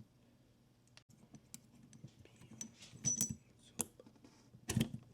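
Scattered light metallic clicks and taps of coil-shock parts being handled as the spring and its locking O-ring are worked into place on an Ohlins TTX22M.2 shock, with a few louder clicks about three seconds in and near the end.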